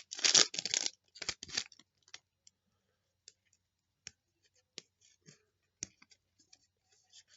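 Trading cards handled and flicked through one by one, with a few rustles in the first second and a half, then sparse light clicks and scrapes of card stock.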